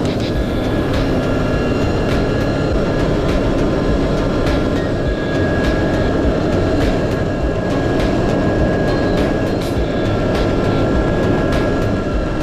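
Steady road noise of a truck travelling at highway speed, picked up by a camera mounted on the truck: a continuous low rumble of engine, tyres and wind, with scattered light clicks and rattles.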